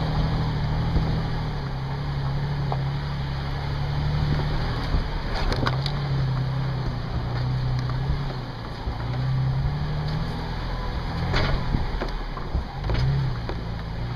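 Off-road vehicle's engine running at crawling speed over a rocky trail, its revs rising and falling in slow waves, with a few sharp knocks, the clearest about five and eleven seconds in.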